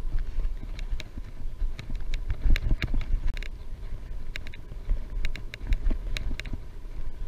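Wind buffeting the microphone while cycling: a steady low rumble, broken by many scattered sharp clicks.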